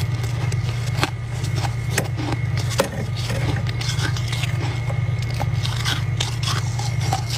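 Flaky freezer frost being bitten and chewed, a run of irregular crunches and crackles, over a steady low hum.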